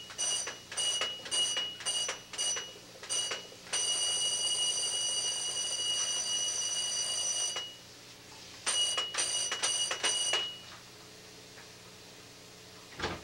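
Toy ringing with a high, alarm-clock-like tone. It comes in a string of short rings, then one held ring of about four seconds, then a few short rings again before it stops.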